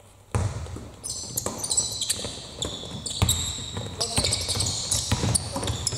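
Basketballs bouncing on a hardwood court and sneakers squeaking as players run, with repeated sharp bounces starting a moment in.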